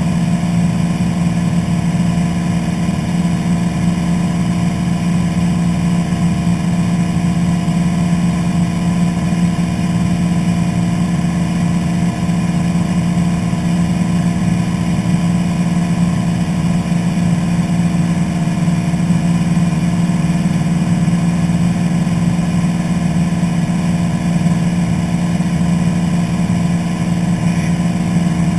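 Light single-engine airplane's piston engine and propeller running steadily in flight, heard from inside the cockpit: a loud, unchanging drone with a strong low hum.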